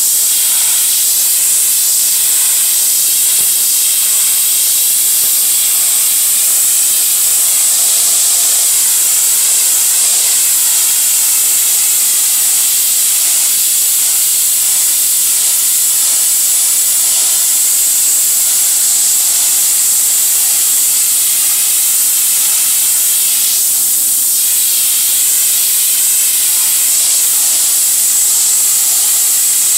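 Pressure washer spraying a high-pressure water jet onto brick, a loud, steady hiss, rinsing graffiti-remover gel and paint off the wall.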